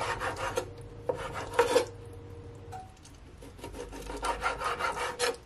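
Kitchen knife sawing through raw chicken breast, the blade rasping against a wooden cutting board. It comes in three runs of quick back-and-forth strokes with short pauses between them.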